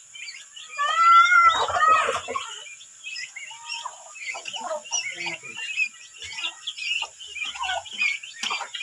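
A brood of young turkey poults peeping, with many short, high chirps overlapping. About a second in, a single louder, drawn-out fowl call stands out above them.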